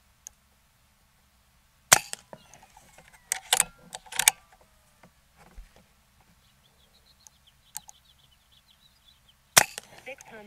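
Two shots from a Brocock Ranger XR .22 PCP air rifle fitted with a 0DB moderator, about eight seconds apart. After the first shot there are a few sharp clicks as the action is worked to load the next pellet.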